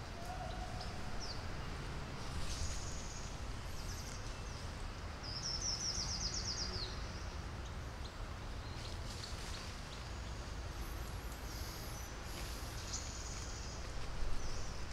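Outdoor ambience: a steady low background rumble with scattered short, high bird calls, including a rapid trill lasting over a second about five seconds in.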